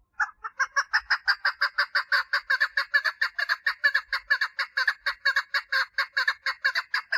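Female chukar partridge giving a long, rapid series of clucking notes, about six a second, kept up without a break: a female's mating call.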